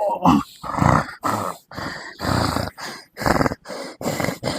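A person grunting and breathing hard in a run of short, rough bursts, about two a second.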